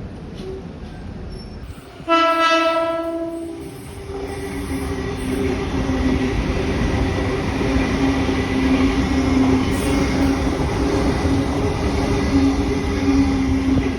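A Sydney suburban electric train sounds its horn once, about two seconds in, a single pitched blast lasting under two seconds. It is followed by the loud, steady noise of the train running past, with a low hum running through it.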